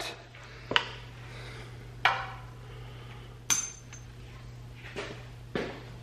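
Light metallic knocks and clinks of metal pipe being handled on a workbench: five separate strikes about a second apart, one with a short high ring about three and a half seconds in.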